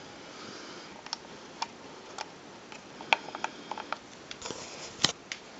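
Scattered light clicks and taps against low room hiss, with a quick run of small clicks in the middle and one sharper click near the end.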